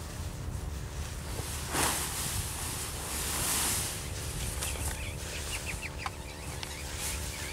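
Nylon parachute canopy rustling and swishing as it is gathered and handled, loudest in two swells early on. In the second half there are short bird chirps in the background, over a steady low hum.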